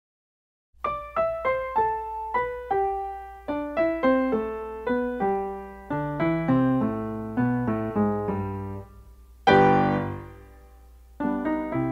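Solo piano music: a quick melody of separate notes starts about a second in, with one loud chord near the end that rings down into a short pause before the playing resumes.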